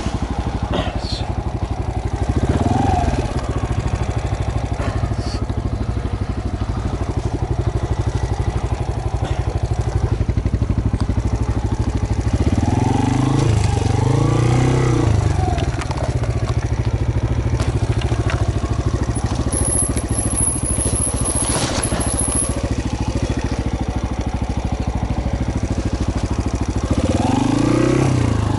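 Off-road motorcycle engine running at low speed as the bike is ridden over a leaf-covered trail. The engine revs up briefly about three seconds in, again around twelve to fifteen seconds in, and once more near the end.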